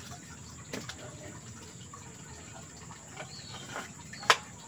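Low background noise with a faint tick about a second in, then near the end one sharp knock as the golok's blade is pushed home into its teak wood sheath.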